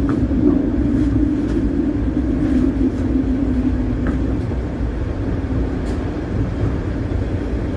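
Inside a Bombardier streetcar running: a steady low rumble with a hum that sinks slightly in pitch over the first few seconds, then holds.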